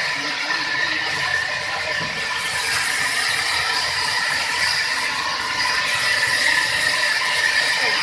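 Sawmill saw cutting through wood, running steadily with a high whine over a continuous rattling, gear-like clatter that grows brighter and harsher a few seconds in.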